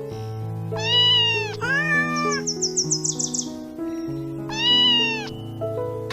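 Domestic cat meowing three times, each meow rising and falling in pitch, over soft background music. A quick run of high, short trills sounds twice between the meows.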